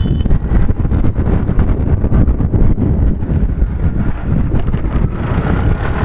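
Wind rushing over the microphone, with road noise from a scooter riding along at a steady pace.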